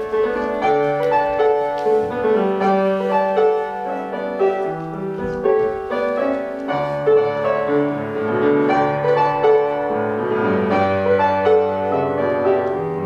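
Instrumental piano music: a melody over bass notes that change about every second, leading into a children's song.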